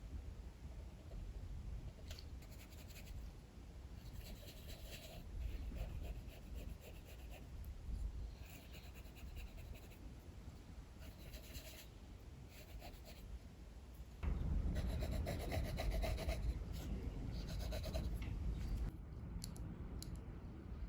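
A drawing tool scratching on paper in short runs of sketching strokes, over a low rumble of strong wind that gets louder for a few seconds about two-thirds of the way through.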